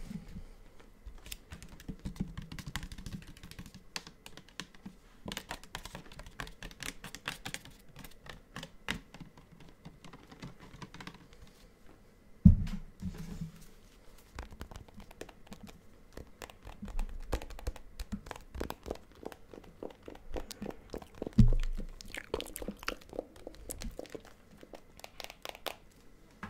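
Hand sounds close to a microphone: quick, irregular fingertip clicks, taps and rubbing. Two louder thumps, about halfway through and again later, come from the hands bumping the microphone.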